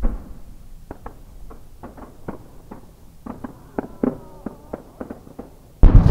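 A 10-inch (shakudama) aerial firework shell's burst: a sharp crack at the start and scattered small clicks, then, loudest of all, a sudden deep boom just before the end that rumbles on like thunder.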